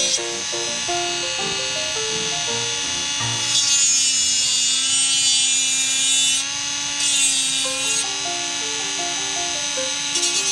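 Small cordless rotary tool running with a steady high whine as its grinding point grinds a chrome-plated plastic model part; the pitch dips slightly for a couple of seconds around the middle. Background music of short plucked notes plays along with it.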